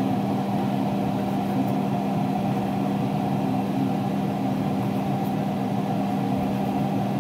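A steady low mechanical hum from a running machine, with a few faint clicks of a chef's knife slicing steak on a wooden cutting board.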